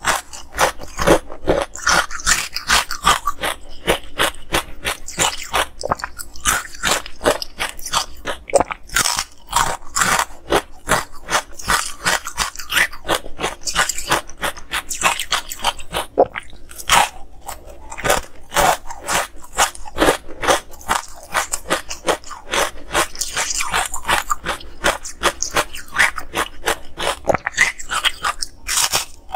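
Ice coated in green powder being bitten and chewed: crisp, crackling crunches that come thick and fast, with almost no pause.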